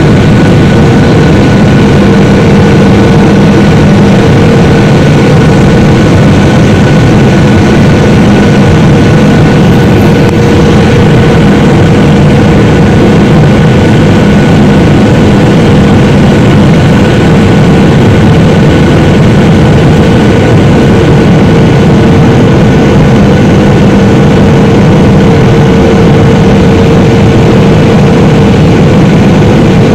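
Cabin noise of a Boeing 737-800 heard from a seat over the wing: the steady rush of airflow and the drone of its CFM56 turbofan engines, loud and unbroken, with a few steady hums beneath it, on descent toward landing.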